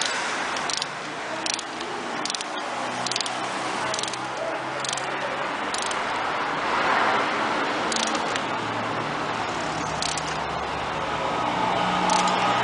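Ratchet wrench clicking in short, irregular strokes as spark plugs are tightened to torque, over a steady background hum.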